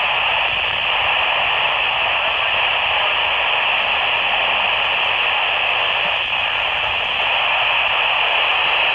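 Steady FM static hiss from a Baofeng BF-F8HP handheld's small speaker, tuned to the AO-91 satellite downlink, with no voices coming through.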